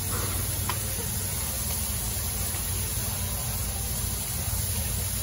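Steam locomotive standing at the station with a steady hiss of escaping steam over a low, even hum.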